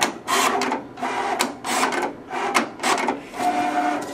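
Vinyl cutting plotter cross-cutting the vinyl roll: a string of short scraping bursts as the cutting head sweeps across the material. About three and a half seconds in, the steady whine of the plotter's motors takes over.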